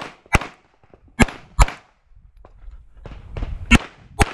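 Pistol shots fired in three quick pairs, the pairs about one to two seconds apart, from a 9mm major Open-division SPS Vista Star race pistol.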